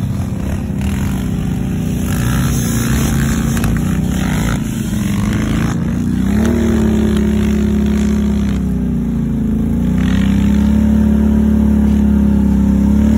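Off-road vehicle engines running close by, revving and changing pitch in the first half, then holding a steadier, gently wavering hum.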